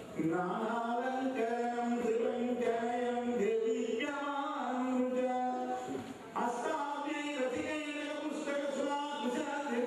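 Hindu priest chanting mantras in a sung, melodic line of long held notes, with brief pauses for breath near the start and about six seconds in.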